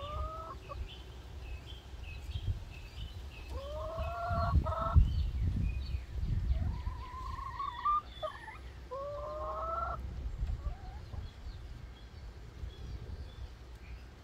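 Domestic hens calling: four drawn-out calls that rise in pitch and then hold, a few seconds apart, with faint higher chirps in the first half.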